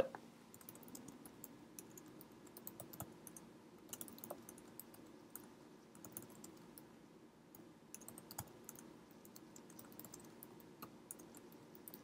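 Faint typing on a computer keyboard: scattered, irregular keystroke clicks over a faint low hum as text is entered into form fields.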